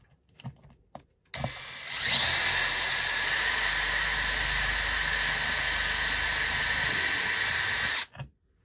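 Cordless drill with a twist bit pre-drilling pilot holes through a cabinet panel into a small wooden block, so the block won't split when screwed. The drill starts softly about a second in, speeds up with a rising whine, runs steadily for about six seconds and stops shortly before the end.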